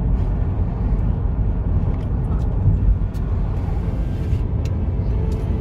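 Steady low rumble of a car's tyres and engine heard from inside the cabin while driving at speed.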